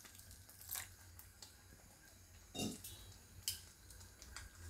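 A spatula stirring thick dal in a steel kadai: a few faint scattered clicks and soft knocks, over a low steady hum.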